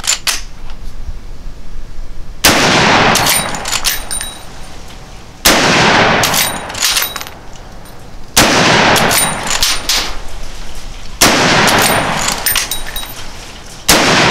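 Five shots from a Henry lever-action rifle in .45-70 Government, about three seconds apart, each one ringing on for a second or two. Sharp clicks come between the shots as the lever is worked to chamber the next round.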